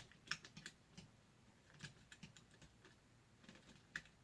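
Faint, scattered clicks and taps of small laptop parts being handled and fitted back together during a screen repair, in small clusters about a third of a second in, around two seconds in and near the end.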